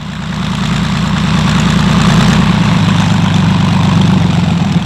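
Kellett XR-8 helicopter in a hover: its engine and intermeshed rotors make a steady, loud drone that swells over the first second.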